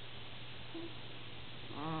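A sleeper snoring: a faint short squeak about a second in, then a louder squeaky, whistling snore starting near the end, over a steady hiss.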